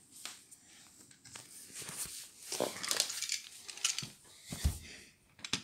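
Handling and movement noise: scattered rustles and light clicks, with a soft low thump about four and a half seconds in.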